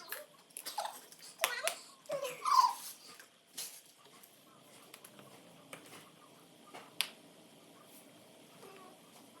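Scattered sharp clicks and taps, with a few short high-pitched vocal squeaks and giggles in the first three seconds.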